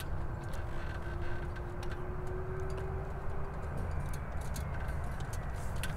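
Dassault Falcon 900EX business jet landing, its turbofan engines a steady low rumble heard from a distance, with a faint, slightly rising tone through the first half and scattered faint clicks.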